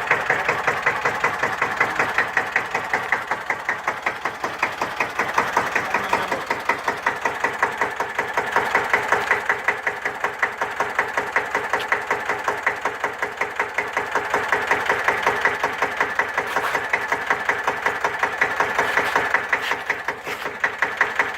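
Single-cylinder, air-cooled diesel engine of a 1954 Deutz F1L612 tractor running steadily at idle after an overhaul, each firing stroke a distinct even beat.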